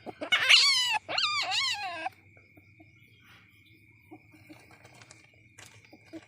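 Young palm civet (musang) calling: two loud, wavering squeals that bend up and down in pitch, over about the first two seconds. After them there is only a faint steady high tone and a few small clicks.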